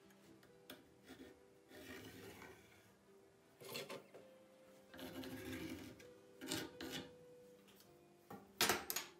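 Pencil scratching marking lines along a steel ruler on rough, weathered pallet wood, in two short strokes. A few sharp clacks come as the metal ruler is set down and moved on the boards, the loudest near the end. Faint background music underneath.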